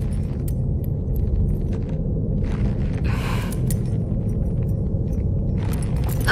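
Low, steady rumbling ambience of an underground cave on an animated soundtrack, with a soft rustling swell about three seconds in and again near the end.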